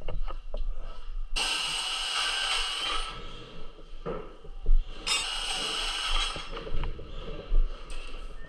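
A handheld power tool runs in two short bursts with a steady whine, the first about a second and a half long and the second about a second long. Light clicks and knocks of handling come between the bursts.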